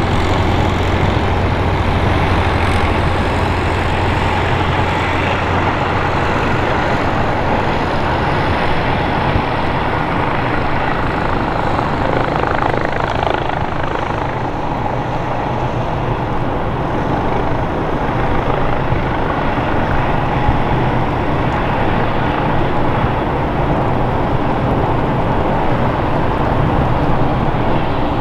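Airbus H135 helicopter hovering low and setting down, its twin turbine engines and rotors running steadily.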